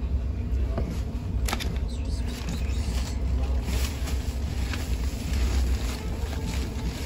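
Steady low rumble of a moving passenger train, heard from inside the coach, with a few short clicks and knocks.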